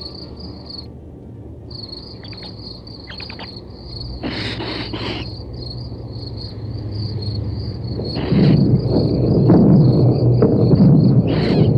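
Crickets chirping in a steady, rapid pulse, breaking off briefly about a second in, with two short hissing bursts around the middle. From about eight seconds in, a loud low rumbling noise builds up and drowns them out.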